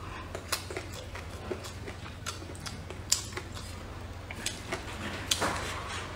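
Wooden chopsticks clicking against a ceramic bowl as fried rice is picked up, with soft chewing and mouth sounds. The clicks are scattered and irregular, the sharpest about three seconds in and again a little after five seconds.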